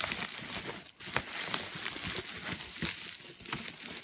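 Bubble wrap and a plastic bag crinkling and rustling as they are pulled and unwrapped by hand, with many small crackles.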